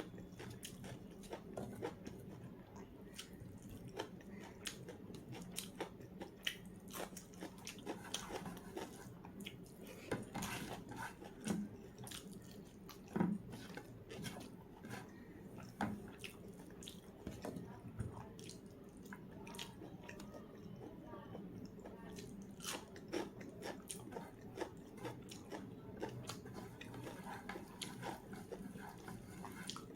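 A person chewing and biting food close to the microphone, with frequent short wet mouth clicks and crunches over a faint steady low hum.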